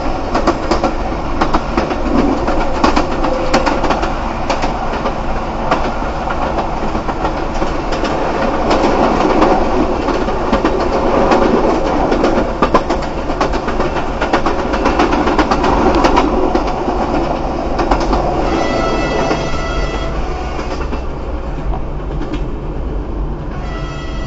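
Chemins de fer de Provence diesel railcar running close alongside, a steady rumble dotted with many sharp clicks from the wheels on the track, heard from a car driving next to it. Near the end a high tone sounds twice.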